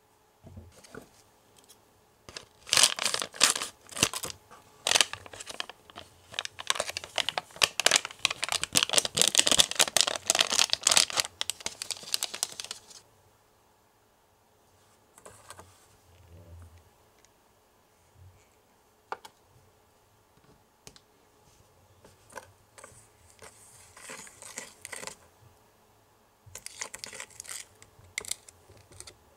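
Foil powder-mix packet being crinkled and torn open by hand, a dense crackling for about ten seconds. Later, softer scattered scrapes and taps of a small plastic spatula mixing in a plastic bowl.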